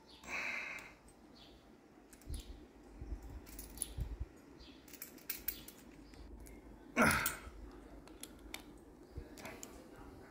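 Small metallic clicks and clinks from a socket and extension bar being turned by hand to drive the screws of a stainless-steel ceiling pad eye. Two louder, brief scraping bursts stand out, one just after the start and one about seven seconds in.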